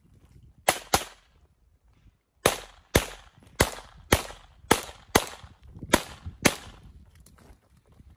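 Ten pistol shots fired in five quick pairs, the two shots of each pair about half a second apart: double taps on targets during a practical-shooting stage run. After the first pair there is a pause of about a second and a half, and each shot has a short echoing tail.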